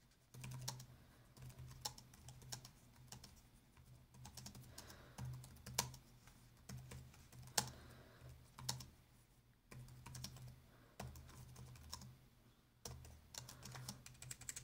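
Typing on the ASUS ROG Zephyrus G14 laptop keyboard: a faint run of irregular key clicks, with a couple of short pauses.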